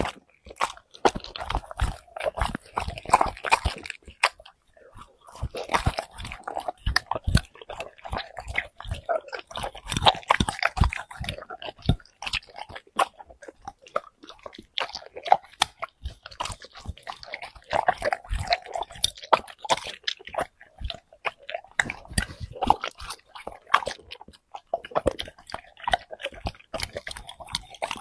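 Dog eating a plate of vegetables such as purple cabbage, with many irregular crunches, bites and chewing sounds in clusters separated by brief pauses.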